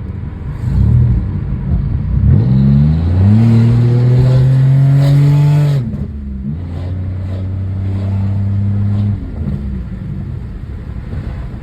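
Pontiac's engine through a catless exhaust (catalytic converters removed) accelerating hard: the revs climb and hold high for a few seconds, then drop suddenly as the throttle is lifted about six seconds in. The engine then pulls steadily at lower revs until it is let off again around nine seconds in.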